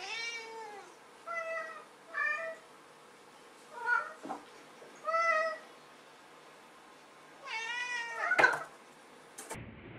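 Domestic cat meowing again and again, about six meows at irregular gaps, the last one longer and wavering. Near the end a sharp knock, the loudest sound, followed by a softer click.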